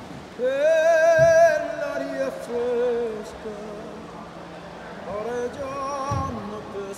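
A male gondolier singing in full voice with wide vibrato: a long held high note about half a second in, falling into shorter notes, then a second phrase about five seconds in.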